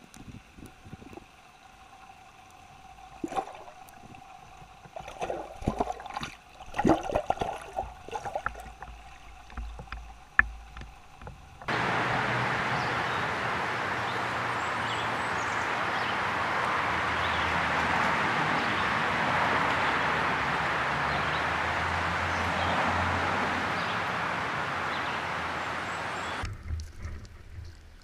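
Muffled knocks and sloshing water heard through an underwater camera, then a steady rush of splashing water from the pond's aerator spray, which cuts off suddenly near the end and gives way to a few knocks.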